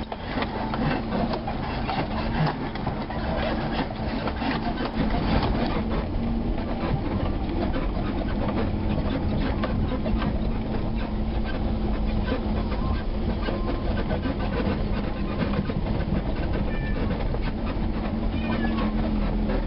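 Car driving on a dirt and gravel road, heard from inside the cabin: a steady engine hum under tyre noise, with frequent small clicks and rattles from the rough surface.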